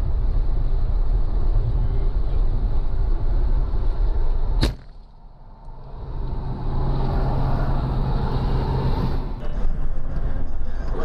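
Steady road and engine rumble of a car driving on a highway, heard from inside the cabin. About halfway through comes a single sharp crack, then the sound drops much quieter for a second or so before the rumble returns.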